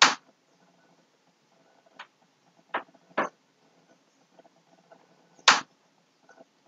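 A few short, sharp noises: a loud one right at the start, two smaller ones around three seconds in and another loud one about five and a half seconds in, over a faint low background.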